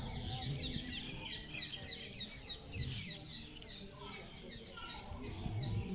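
Many birds chirping at once in the trees, a dense chatter of short, quickly falling chirps, with a low rumble beneath.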